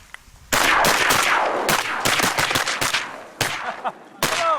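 Several shotguns firing a rapid volley at incoming ducks. It starts about half a second in with a dozen or so overlapping shots over about two and a half seconds, then two more single shots near the end.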